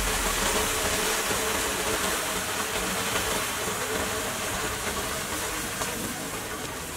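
Hundreds of sparklers burning at once, a steady fizzing hiss that slowly fades as they burn down.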